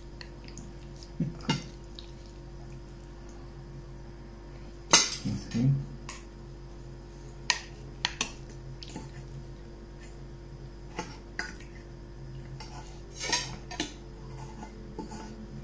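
Wooden serving spoon scraping and knocking against a glass baking dish and a plate as food is dished out: scattered clinks and scrapes, busiest about five seconds in and again near the end, over a faint steady hum.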